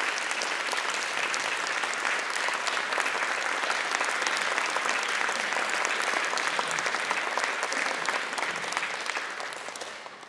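Audience applauding, a steady mass of clapping that dies away near the end.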